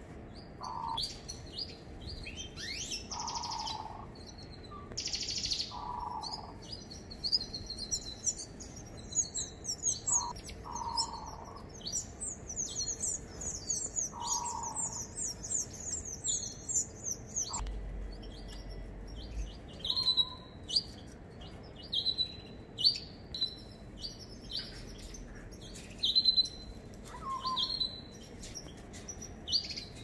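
Several small aviary birds, canaries among them, chirping and calling throughout, with a fast, high trilling song from about 7 to 17 seconds in.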